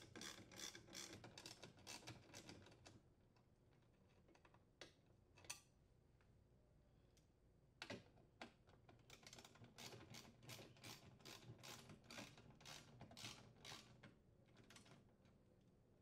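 Faint rapid clicking of a ratchet turning a 10mm socket while it unthreads screws, about five clicks a second. It stops about 3 s in, a few single clicks follow, and it runs again for several seconds from about 9 s in.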